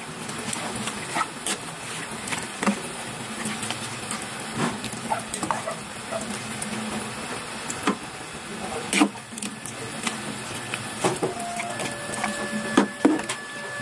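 Ladle stirring vegetables in coconut milk in a metal pot, with irregular clinks and scrapes of the ladle against the pot.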